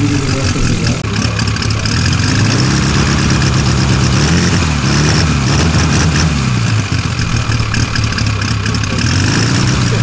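Valach 280 B4 four-cylinder engine of a giant-scale RC Piper Clipped Wing running on the ground with its propeller turning, warming up. Its speed rises and falls a few times as the throttle is worked, then holds steadier near the end.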